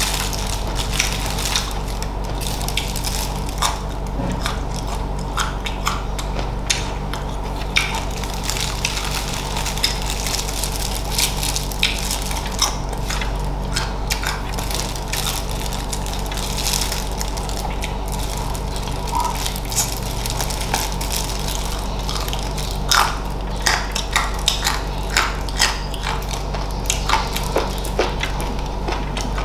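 Close-up chewing and crunching of Thai-sauced chicken feet and crisp green mango: irregular crunches and clicks of bites, coming thicker near the end, over a steady low hum.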